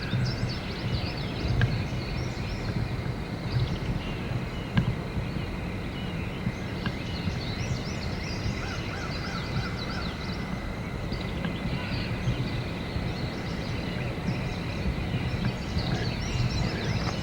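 Outdoor woodland ambience: many small birds chirping throughout, over a steady low rumble of wind on the microphone.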